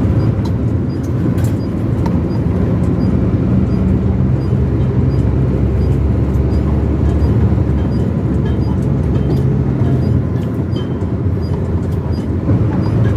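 Steady drone of a vehicle's engine and tyre noise while driving along a highway at a constant speed.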